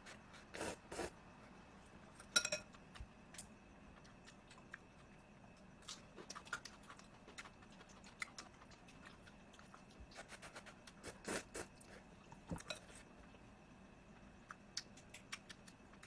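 A person slurping and chewing ramen noodles: scattered short wet slurps and mouth clicks, the loudest about two seconds in and another cluster around eleven seconds.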